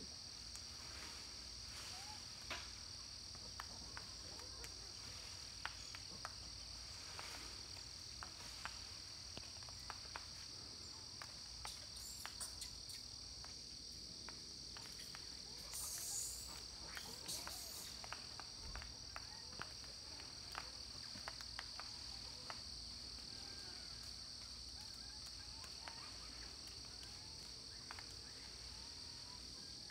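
Steady high-pitched drone of an insect chorus, unbroken throughout, with scattered faint clicks and rustles and a brief hiss about sixteen seconds in.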